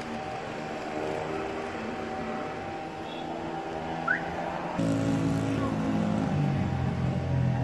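Engines running and revving unevenly in the distance. About five seconds in, a louder, steady, low engine note comes in suddenly close by, from a small truck rolling slowly forward.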